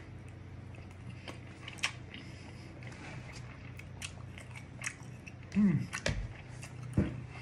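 Mouth sounds of a person chewing a mouthful of rice and curry, with scattered light clicks of a metal fork against the plastic takeaway tray. A short hummed vocal sound comes about five and a half seconds in.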